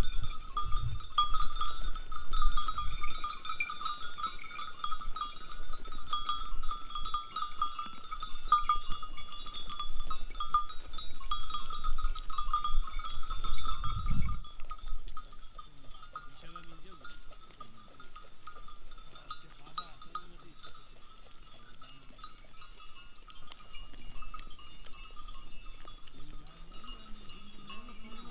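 Many bells on a herd of sheep and goats clinking and jangling continuously as the animals move and graze. The bells are loudest in the first half and grow fainter about halfway through, with a low rumble near the start and again just before the bells fade.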